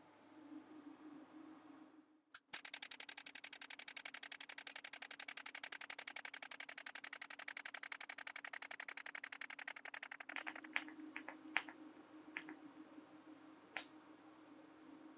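TIG welding arc on steel: a sharp click as the arc strikes about two seconds in, then a fast, even crackling buzz for about eight seconds that cuts off suddenly when the arc is stopped. A few scattered sharp ticks follow.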